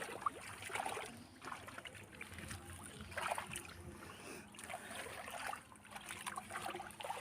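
River water splashing and sloshing in irregular swells, with a short click about a quarter second in.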